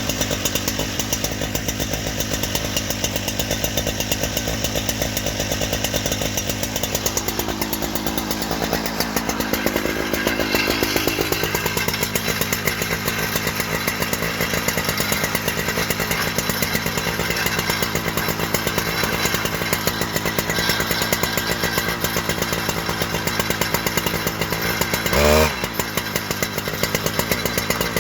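Husqvarna 3120 large two-stroke chainsaw with a 42-inch bar, running on an Alaskan chainsaw mill. The engine note stays steady, sags in pitch under load about a quarter of the way in and then picks back up. A brief louder burst comes near the end.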